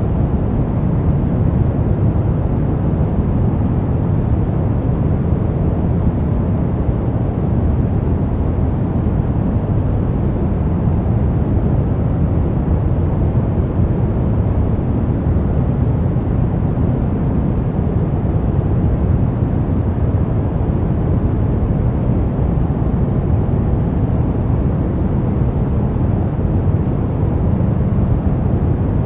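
Brown noise: a steady, deep rushing hiss, strongest in the low end and thinning out toward the highs, with no changes.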